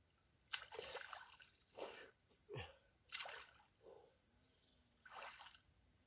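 Faint splashing of a swimmer moving through lake water: a series of soft, irregular splashes.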